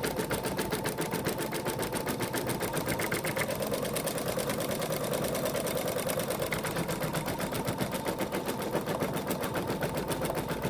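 Embroidery machine stitching steadily, a rapid, even run of needle strokes as it sews the stitch line around an appliqué piece.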